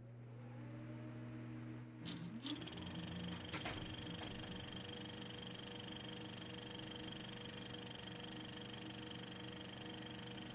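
Faint steady hum made of several held tones over a light hiss, with a few clicks and knocks between about two and four seconds in.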